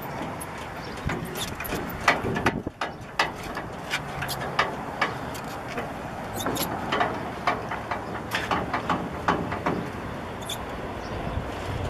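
A vehicle engine runs steadily under a string of short metal clicks, knocks and rattles.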